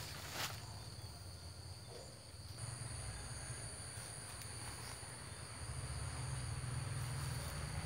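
Insects trilling faintly and steadily in a high tone, with a second, higher trill joining about two and a half seconds in, over a low rumble. There is a faint tap near the start.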